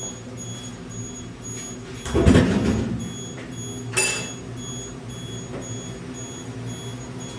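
Laboratory fume hood's exhaust airflow running in purge mode, a steady hum, with a faint high beep repeating about twice a second. A loud low rushing thump comes about two seconds in, and a sharp click about four seconds in.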